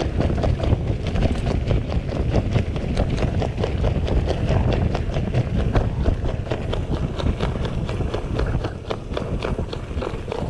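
Mountain bike rolling fast down a rough dirt track: a steady stream of rattles and knocks from the bike over the bumps, over a loud low rumble of wind on the microphone and tyres on dirt.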